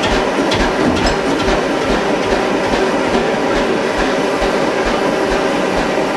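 Tuxham single-cylinder two-stroke hot-bulb semi-diesel running at a slow, steady beat of roughly two firing strokes a second, with a mechanical clatter on each stroke.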